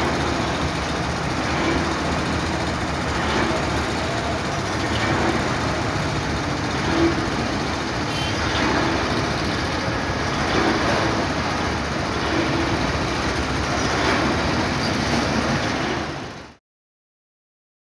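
An engine running steadily, a dense, continuous noise that cuts off suddenly near the end.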